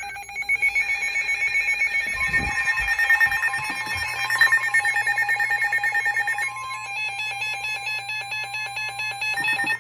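Emergency Alert System tones from a NOAA Weather Radio broadcast, sounding the start of a new warning: a harsh electronic buzzing warble of rapidly switching tones that changes character about two-thirds of the way in.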